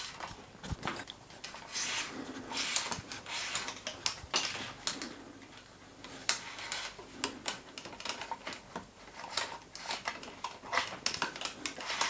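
Irregular light clicks, taps and brief rustles of a hydraulic brake hose and internal routing wire being fed through a road bike frame by hand.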